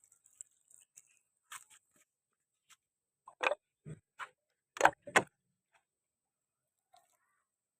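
Irregular clicks and knocks from something being handled. Three or four sharper, louder knocks come about halfway through.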